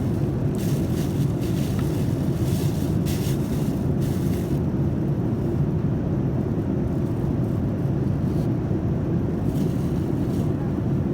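Steady low roar of a Boeing 787-9's cabin in flight: engine and airflow noise heard from inside the passenger cabin, with some fainter higher hiss over the first few seconds.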